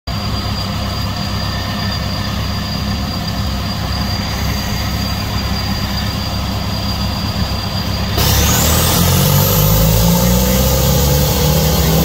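Tow-behind wood chipper's engine running steadily, then about eight seconds in it suddenly gets louder, with a rising whine as it speeds up.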